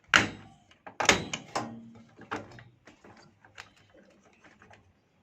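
Stock CPU cooler being pressed and clipped onto the motherboard: two loud sharp clicks about a second apart, followed by a run of lighter clicks and taps as it locks into place.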